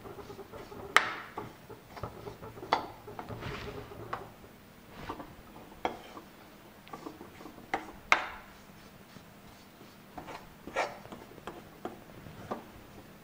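Metal spoon stirring and scraping a dry mix of roasted wheat flour and sesame seeds in a metal kadhai, with irregular clinks of the spoon against the pan. The sharpest knocks come about one second in and about eight seconds in.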